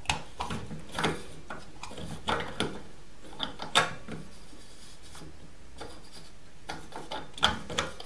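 Plastic clicks, knocks and rubbing of a Honeywell Rondostat radiator valve head being handled and worked onto its valve adapter. The clicks come irregularly, with the sharpest knock a little under four seconds in, a quieter spell after it, and a cluster of clicks near the end.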